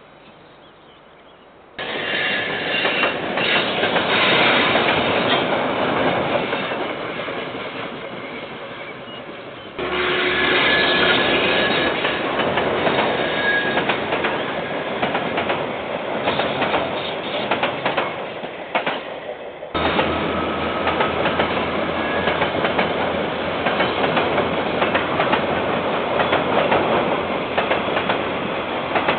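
Freight train wagons rolling past on the rails, wheels clattering over the track with a few brief high wheel squeals. The sound begins after about two seconds of quiet and jumps abruptly in level twice more as it cuts to other passing trains.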